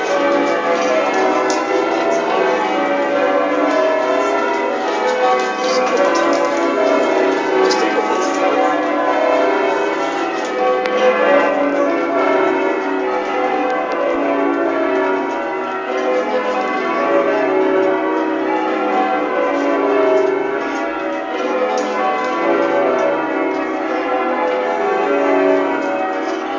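A ring of twelve tower bells, tenor in B of about 42 cwt, being rung in changes: a continuous, evenly paced stream of overlapping bell strikes.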